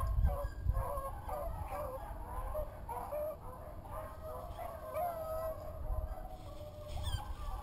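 A flock of wild turkeys clucking and purring: many short, wavering, overlapping calls, over a low rumble on the microphone.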